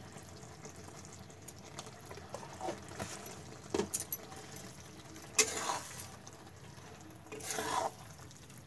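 Aloo matar curry simmering quietly in a kadhai, with a few short scrapes and clinks of a spatula against the pan; near the end the spatula begins stirring the curry.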